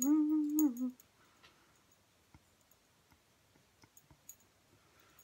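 A woman humming a held note that steps a little higher and stops about a second in, followed by faint scattered clicks and taps.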